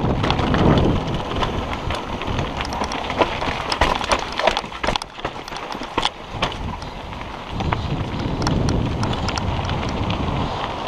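Enduro mountain bike tyres crunching over loose gravel and stones at speed, with a steady run of sharp clicks and clattering knocks from stones and the bike's rattling parts.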